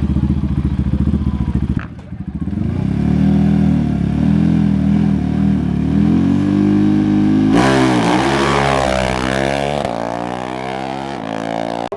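ATV engine running loud with a lumpy, throbbing idle, then revved up and down several times from about seven seconds in.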